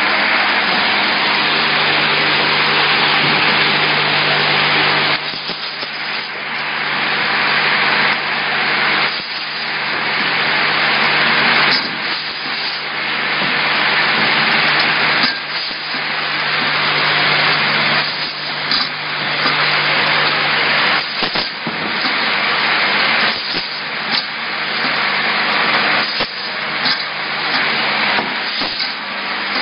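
Automatic single-head screw capping machine running: a steady mechanical hiss over a low hum that dips briefly every few seconds, with scattered clicks in the second half.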